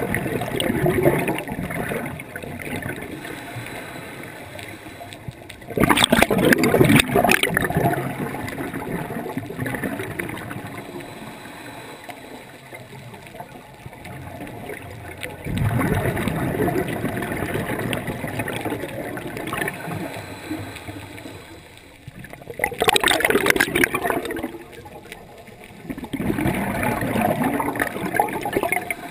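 Scuba diver breathing through a regulator underwater: slow breaths several seconds apart, each a surge of hissing and rushing exhaled bubbles.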